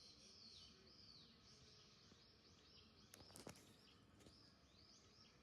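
Near silence with many faint, short, high chirps repeating throughout, and a few soft clicks a little past three seconds in.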